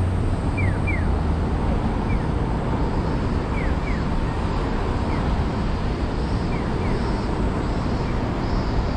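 A Japanese pedestrian crossing's electronic bird-call signal: a single falling chirp answered by a pair of chirps, alternating about every one and a half seconds. Under it runs a steady noise of city traffic.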